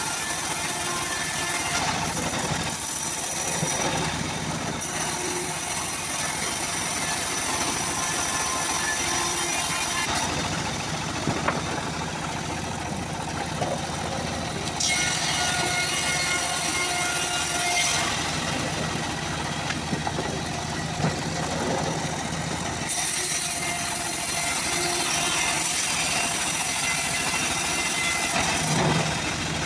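Homemade bandsaw mill ripping a teak board lengthwise: a steady machine drone under the hiss of the blade cutting through the wood. The high cutting hiss fades twice and comes back as the board moves through the blade.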